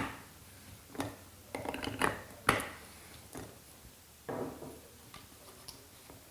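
Spanner wrench turning and loosening the drive gear of a water softener control valve: a series of sharp clicks and clacks, with a longer squeaking scrape about four seconds in.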